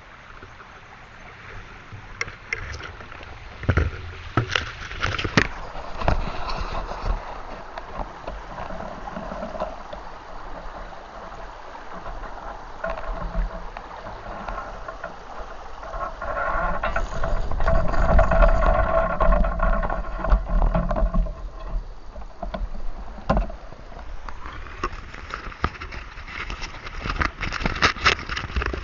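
Small stream flowing and gurgling, with scattered knocks and rustles of handling close to the microphone; the water grows louder for a few seconds midway.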